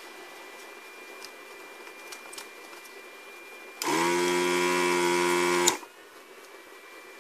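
Desoldering gun's vacuum pump buzzing loudly for about two seconds, starting a little before the middle and cutting off sharply, as it sucks molten solder off a joint on the circuit board.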